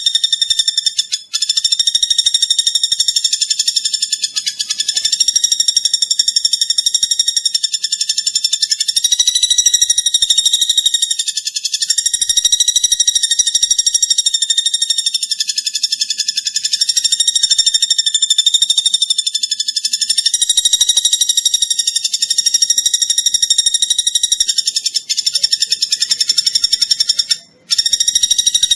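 A small songbird, the platuk bawang of Indonesian bird-keeping, singing a continuous high, rapid trill that wavers slightly in pitch. The song breaks off briefly about a second in and again near the end.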